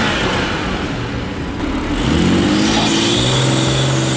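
BMW B58 3.0-litre turbocharged straight-six running just after start-up, drawing through an aftermarket aluminium cold air intake with the factory intake silencer removed. The revs drop back at the start, run lower for a moment, then rise about halfway through and hold there.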